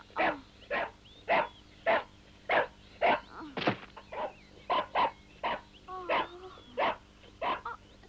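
A dog barking over and over in short, sharp barks, close to two a second, with a brief whining wobble about six seconds in.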